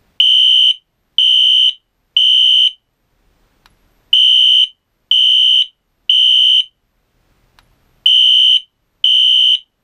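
Wheelock NS horn-strobe fire alarm sounding its horn in the temporal-3 evacuation pattern. Loud, high-pitched beeps about half a second long come in groups of three, each group followed by a pause of about a second and a half.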